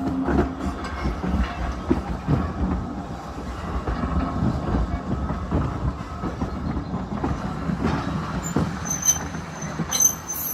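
Steam-hauled heritage train rolling along the track, its wheels clicking over the rail joints over a steady low rumble, with short high-pitched squeals near the end.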